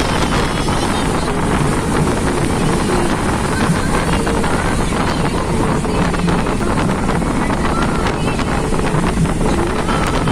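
Vehicle running on the road with heavy wind rushing over the microphone, a steady loud noise throughout.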